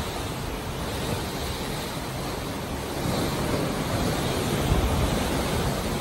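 Steady rush of sea water churning along a moving ship's hull, mixed with low wind rumble; it grows louder about halfway through.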